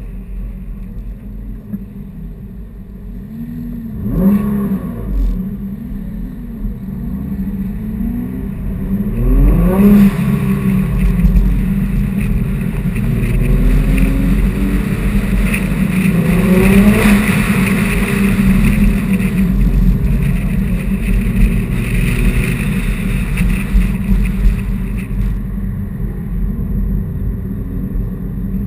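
Sports car engine running under load, its note rising in three sweeps about 4, 9 and 16 seconds in as it accelerates, over a steady rumble of road and wind noise.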